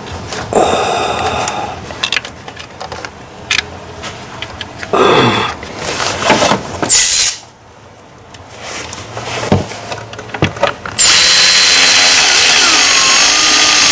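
A power tool driving in the ignition coil's hold-down bolt on a Ford 5.4L V8: a few short bursts, with clicks of tool handling between them, then one longer, loud, steady run of about four seconds near the end.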